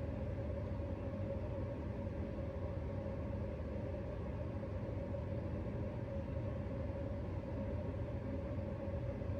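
Steady low rumble with a faint constant hum: unchanging background room noise, with no distinct events.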